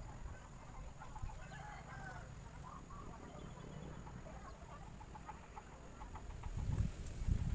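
Faint bird calls: short chirps with clucking, fowl-like notes, and a quick series of short notes near the end, over a low rumble.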